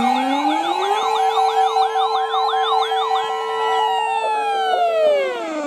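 Several sirens sounding together: a rising wail, a fast warble repeating about three times a second and a steady tone. About four seconds in they all wind down in pitch together, and near the end they start to rise again.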